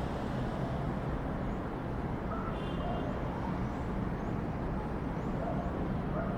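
Steady low rumble of city road traffic, with a brief high-pitched tone about two and a half seconds in and a few faint high chirps.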